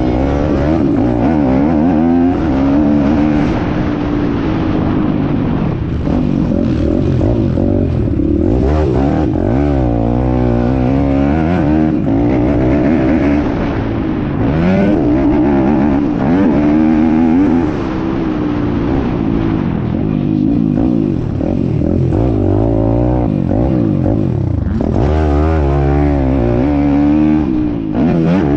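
Piranha P190 pit bike's single-cylinder four-stroke engine being ridden hard, its revs climbing and dropping again and again through the gears, heard close up from the bike.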